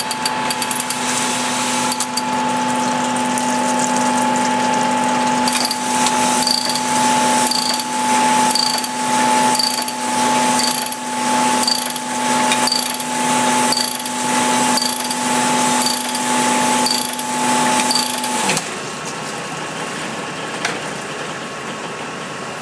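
Cylinder-honing machine running its stones in a bore of a Nissan VQ35 V6 block fitted with a torque plate. It gives a steady motor whine, with a regular pulse a little more than once a second as the hone strokes up and down, and it stops about three-quarters of the way through, leaving a steady background hum.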